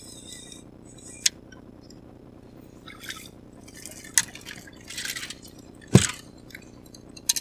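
A small fish splashing as it is reeled to the surface and lifted out of the water, with a few sharp clicks. A loud knock on the boat about six seconds in as the fish swings in against it.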